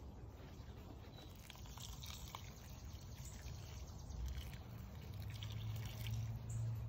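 Water poured from a small plastic cup onto potting soil around a fig cutting, loudest near the end. Before it come a few light knocks and rustles of hands working in the pot.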